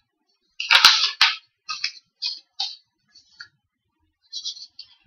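Sheets of paper being handled and shifted on a desk: a loud crackling rustle with sharp knocks about a second in, then a series of short, light rustles.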